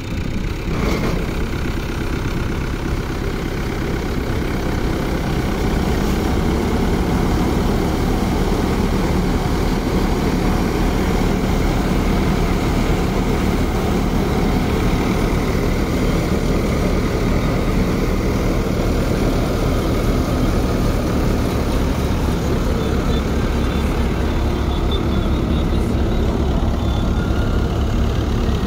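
Fiat tractor's diesel engine running steadily, driving a belt-driven crop thresher, the two machines blending into one dense, continuous mechanical din. It gets louder over the first few seconds, then holds steady.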